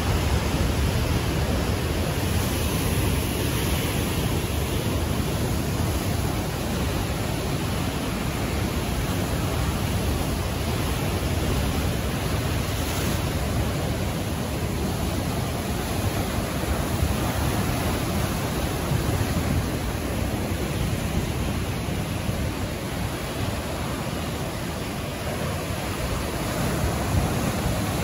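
Ocean surf breaking over a rocky shore: a steady, continuous rush of white water with no single crash standing out.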